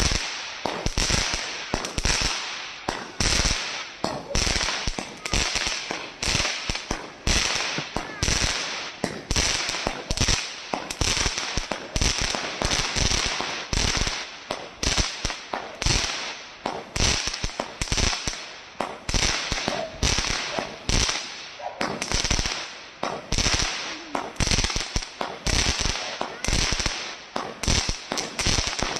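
Multi-shot fireworks cake firing shot after shot, about one and a half reports a second, each a sharp bang with a short trailing tail.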